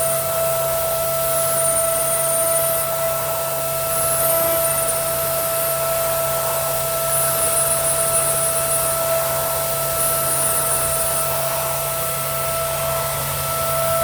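Gerber Sabre 408 CNC router running a job on plywood, with its vacuum hold-down table and dust extraction going: a steady whine over a low hum, with short high hissing passages every few seconds.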